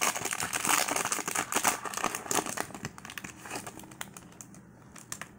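Foil wrapper of a Premier Draft football card pack crinkling as it is torn open and the cards pulled out: dense crackling for the first couple of seconds, thinning to a few scattered crackles and dying away near the end.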